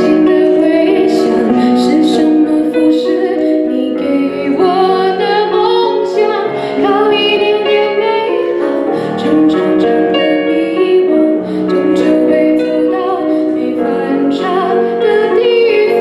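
A woman singing a Mandarin pop ballad into a microphone over instrumental accompaniment, holding long notes with a wavering vibrato.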